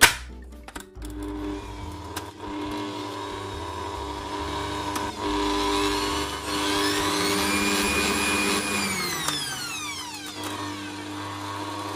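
Bosch stand mixer switched on with a click, its motor running and its beater turning through stiff butter-and-sugar cookie dough. About six seconds in its whine rises in pitch, holds, then falls back near ten seconds.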